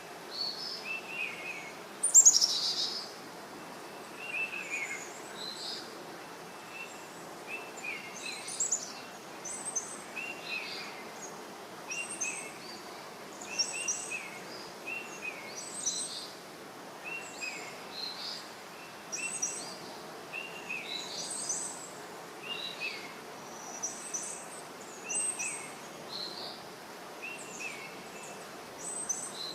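Birds chirping and calling, short repeated notes coming every second or two over a steady outdoor hiss, with one louder call that falls in pitch about two seconds in.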